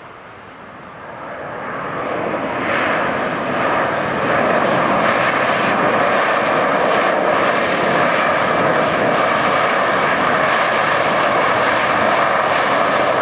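Jet engines of an Airbus A321-200 on its landing roll, their noise swelling over the first few seconds and then holding steady.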